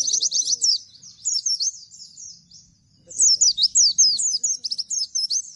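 Pleci (white-eye) singing its rapid 'nembak' song, a fast run of sharp, high, falling notes. It comes in two bursts with a short pause in the middle; the second burst, from about three seconds in, is the loudest.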